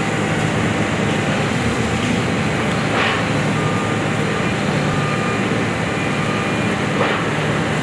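Demolition excavator's diesel engine running steadily while its hydraulic grapple works at a steel-truss footbridge, with two short, sharp noises from the demolition about three and seven seconds in.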